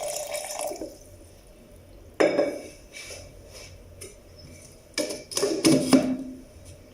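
Water pouring into a glass blender jar, stopping about a second in. Then a few knocks and clinks of glassware, the loudest about two seconds in and again near the end.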